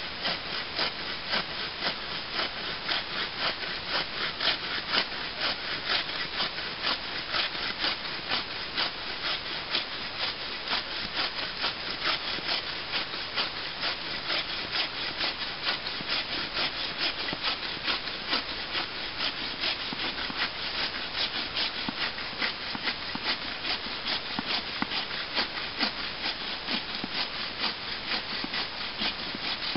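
Folding takedown bushcraft frame saw with large, well-set teeth cutting through a log by hand: steady back-and-forth rasping strokes, about two a second, without a pause.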